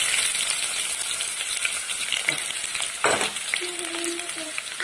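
Chopped onions sizzling in hot oil in a kadai, a loud frying hiss that eases slightly as it goes on, with a couple of sharp knocks about two and three seconds in.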